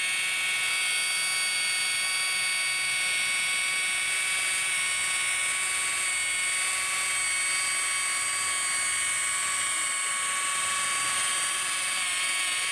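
Electric rotary polisher running steadily at about 1,000 RPM with a wool buffing pad, a steady high-pitched motor whine with several held tones that does not change.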